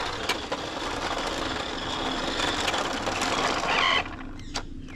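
Remote-control Bugatti toy car driving on rough concrete: a steady running sound from its motor and wheels, which drops away about four seconds in.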